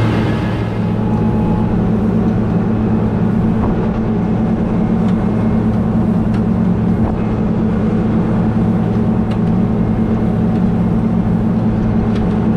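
Combine harvester running steadily while harvesting oats, a constant deep engine hum.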